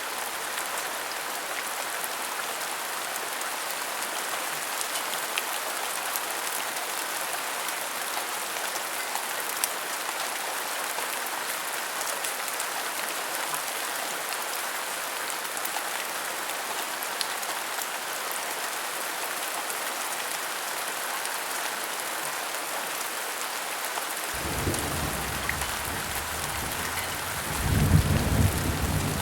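Steady rain falling. About 24 seconds in, a low rumble of thunder begins and grows louder near the end.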